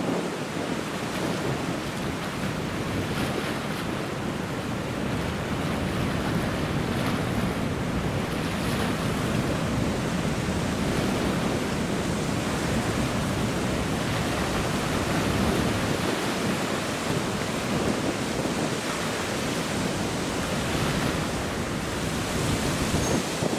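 Wind blowing over the microphone with choppy river water, a steady rushing noise.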